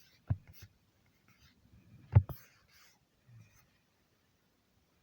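A few short, soft knocks, the loudest about two seconds in, with faint hiss between them.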